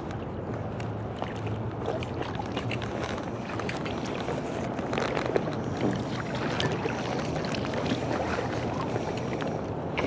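River water rushing steadily, with scattered small clicks and splashes through it.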